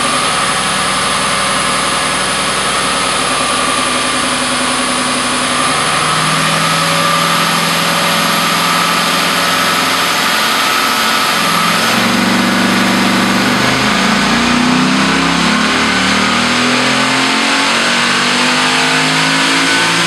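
2005 Pontiac GTO's LS2 V8 running under load on a chassis dyno, driving the rollers. The engine note steps up in pitch about six and twelve seconds in, then climbs in the second half.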